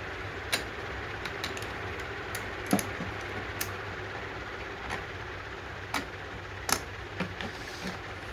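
Light, irregular clicks and taps of small carburetor parts being handled and fitted together, over a steady background hum.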